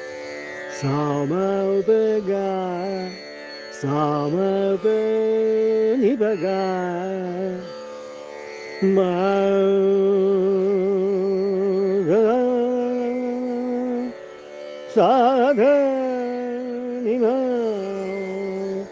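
A male Hindustani classical vocalist sings wordless, ornamented phrases with sliding, wavering pitch over a steady drone. He sings about six phrases, with short breaks between them.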